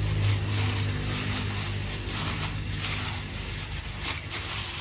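A hand in a plastic bag kneading and squeezing sliced pork loin with spices and oil in a steel bowl: plastic crinkling and wet squelching in irregular strokes. A low hum fades out over the first second or two.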